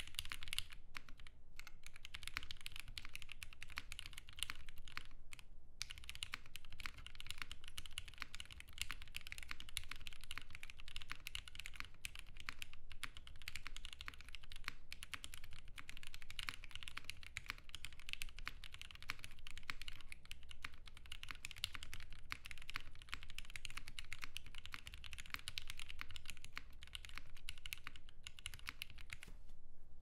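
Fast, continuous typing on a mechanical keyboard fitted with Gateron FC switches and GMK Deep Navy doubleshot keycaps: a dense run of key strokes, broken by a couple of brief pauses.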